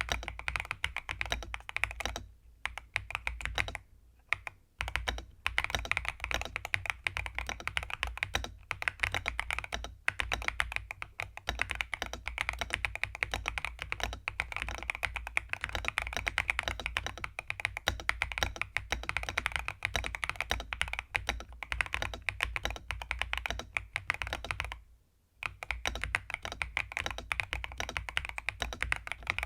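Fast, continuous typing on a mechanical keyboard fitted with pre-lubed Gateron Smoothie linear switches, with short pauses near the start and about 25 seconds in. The keystrokes sound creamy and a little thocky.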